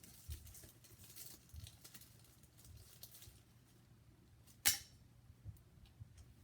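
Faint rustling and light handling of packaging and stand parts, with scattered soft ticks and one sharp click a little under five seconds in. A faint steady low hum runs underneath.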